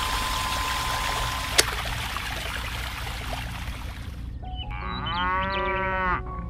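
Water pouring from a small pump's hose into a shallow plastic pool, with one sharp click partway, stopping abruptly about four seconds in. Then a cow moos once, about a second and a half long.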